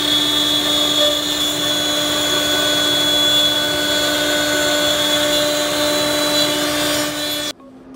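Four-head CNC router milling a wood panel: the spindles run with a steady high whine over the noise of cutting, cutting off suddenly near the end.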